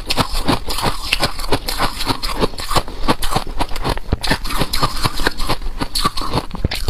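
Chewing a mouthful of freezer frost close to a clip-on microphone: rapid, continuous crunching, several crunches a second.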